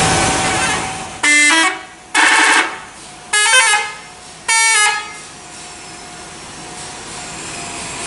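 Bus telolet horn, a multi-trumpet musical air horn, sounding four short blasts about a second apart, each stepping through a couple of notes. Before them, a second of steady rushing noise fades out.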